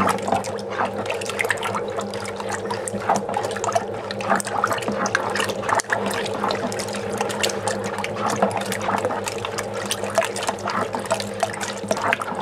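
Thick homebrew beer-kit wort, malt extract dissolving in hot water, being stirred by hand in a plastic bucket: continuous sloshing and splashing of liquid, with a steady low hum underneath.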